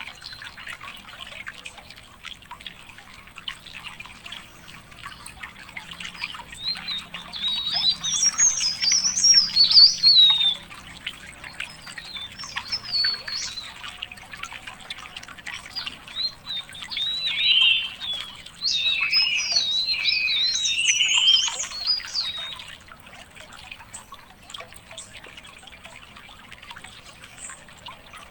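A songbird singing fast, twittering warbled phrases that jump up and down in pitch, in several bursts of a few seconds each, loudest in the middle. Beneath it runs a faint, steady hiss of quick ticks.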